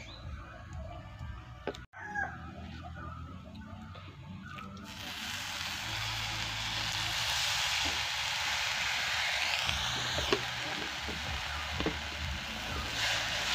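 Dried shrimp and chili mixture sizzling in a hot clay pot over a wood fire as salt water is added. The steady sizzle starts suddenly about five seconds in and keeps on.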